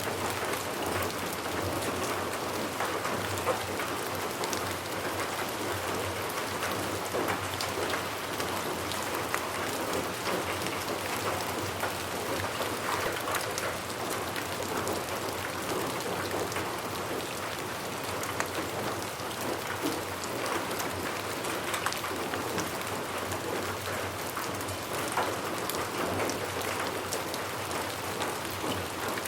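Steady rain falling on a surface, an even hiss dotted with many individual drop impacts.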